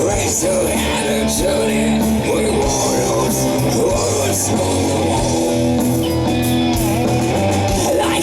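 Live rock band playing a guitar-led rock song, with bass and drums under it; a steady, loud passage with no break.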